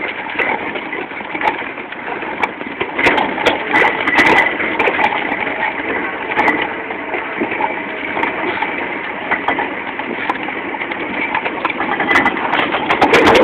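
Halftrack running across rough ground: a steady engine noise with frequent rattles and knocks throughout.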